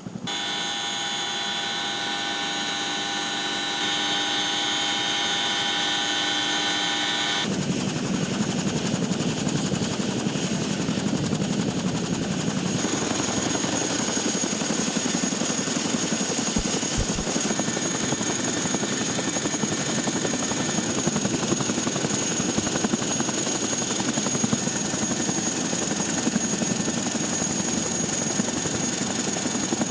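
Military helicopter running, with a steady turbine whine of several high tones. About seven seconds in it changes abruptly to a louder, denser rotor and engine noise with a thin high whistle.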